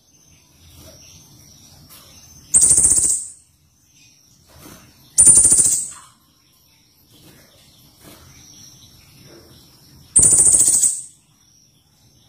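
Pentis raja songbird giving three short, harsh, very rapid trills, each under a second, several seconds apart. A faint thin high note runs in the gaps between them.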